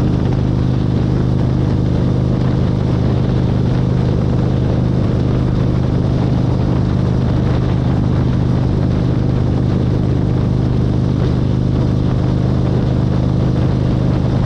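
A car's engine and tyres on the road, heard inside the cabin while cruising steadily on a highway: a constant low hum with an even rush of road noise and no change in pitch.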